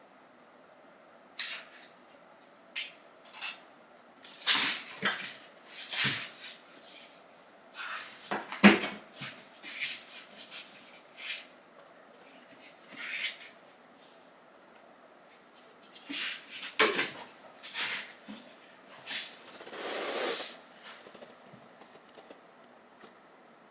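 Two cats play-wrestling on a flattened cardboard box on a hard floor: clusters of scrabbling, scraping and light thuds from their paws and claws on the cardboard and floor, with short pauses between scuffles.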